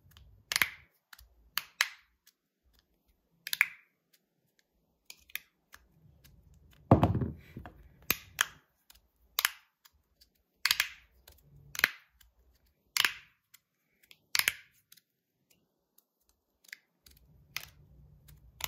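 Metal slider fidget toy slid back and forth in the hand, each stroke ending in a sharp click, about once a second and sometimes two in quick succession. One louder, fuller clack comes about seven seconds in.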